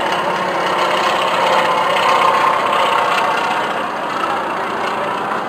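Engine of a small propeller-driven aircraft flying overhead. The steady sound grows a little louder about two seconds in and then eases off.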